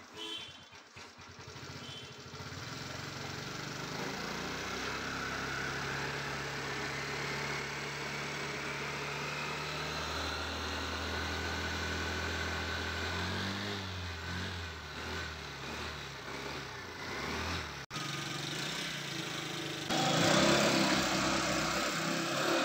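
Vespa VXL 150 scooter's single-cylinder four-stroke engine running steadily at idle on its stand with a freshly replaced drive belt, its note shifting a couple of times. A louder, rougher noise comes in near the end.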